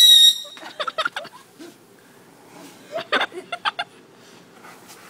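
A whistling firework's shrill whistle, falling slightly in pitch, cuts off about a third of a second in. Two short runs of laughter follow, about a second in and again near the three-second mark.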